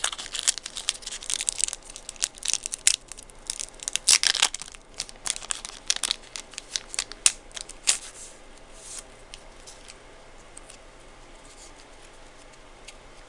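Yu-Gi-Oh booster pack wrapper being torn open and crinkled, a dense run of sharp crackles for about eight seconds. After that it turns to faint, sparse handling sounds.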